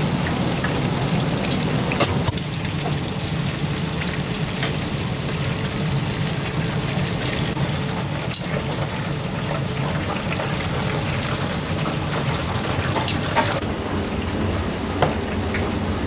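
Tempura frying in hot oil: a steady, dense sizzle and crackle with a few sharper pops.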